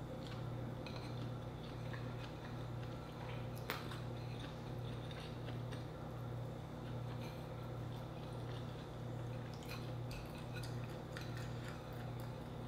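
Close-miked eating sounds: chewing, and fingers picking rice off a plate, with scattered small clicks and one sharper click about four seconds in, over a steady low hum.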